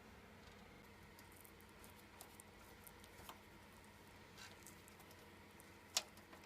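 Near silence with faint scattered clicks and ticks of small computer hardware being handled, and one sharper click about six seconds in.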